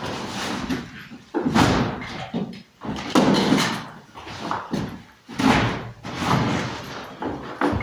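Repeated loud knocks and bangs, one every second or two, each cutting in sharply and dying away.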